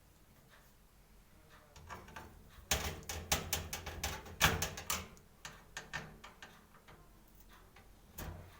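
A quick run of clicks, knocks and light clatter about three seconds in, with one more knock near the end: hand work on a metal desktop computer case while a motherboard is being screwed in.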